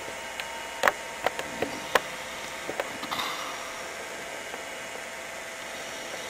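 Steady background hiss with a handful of sharp clicks in the first three seconds, the loudest about a second and two seconds in.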